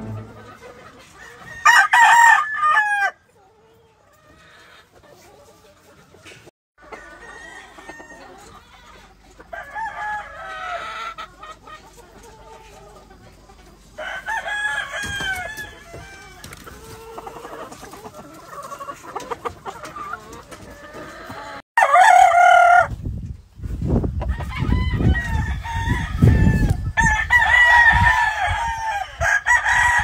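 Roosters crowing one after another, several separate crows from more than one bird, with clucking between them. The loudest crows come about two seconds in and about two-thirds of the way through, and a low rumble joins in during the second half.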